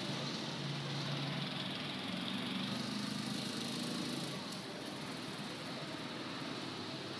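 Steady low, rumbling background noise with a faint engine-like hum, easing slightly about four seconds in.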